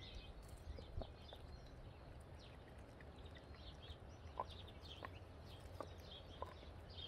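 A small dog gnawing a raw pork bone, its teeth giving a few soft, scattered clicks, against faint birdsong chirping throughout.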